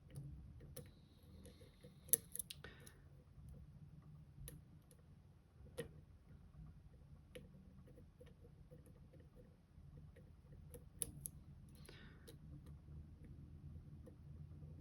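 Faint, scattered clicks and ticks of a lock pick working inside an M&C Color+ dimple lock, pushing at its spring sliders and pins, with a few sharper clicks among them.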